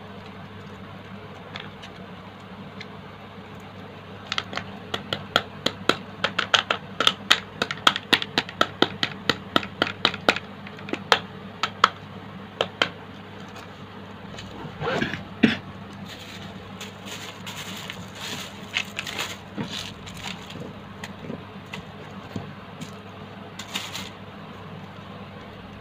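A stiff plastic sachet crinkling and crackling in the hands as it is squeezed and shaken to empty it into a plastic bowl. There is a quick run of sharp crackles, several a second, then softer rustling, over a steady low hum.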